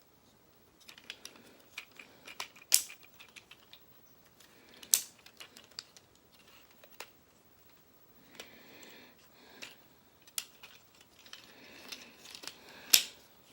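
Hard plastic parts of a transforming robot toy clicking and snapping into place as it is worked by hand. There are many light clicks, and three sharper snaps stand out: about three seconds in, about five seconds in, and near the end.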